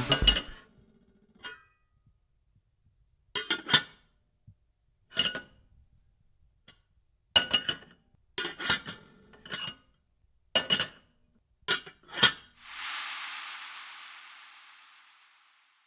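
Hard tableware clinking: a dozen or so sharp clinks, some in quick pairs and clusters, each with the same short ring. Near the end comes a hiss that fades away over about two seconds.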